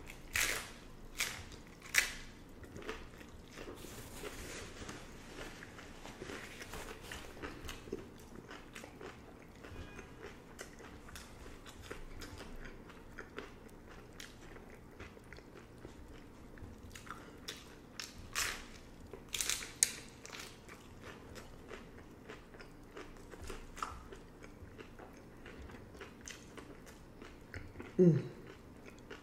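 Crunchy hard-shell beef tacos being bitten and chewed, with sharp crunches near the start and again about two-thirds of the way through, and softer chewing in between. Near the end there is a brief vocal sound that drops in pitch.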